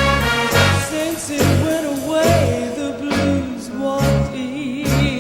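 A band plays a slow torch song, with a bass note about every half second under a wavering melody line.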